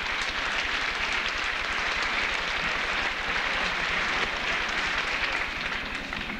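Audience applauding steadily in an auditorium, dying down near the end.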